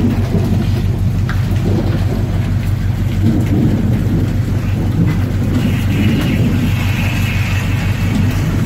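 Gale wind buffeting the microphone in a steady deep rumble, over rain and spray beating on a ship's open deck.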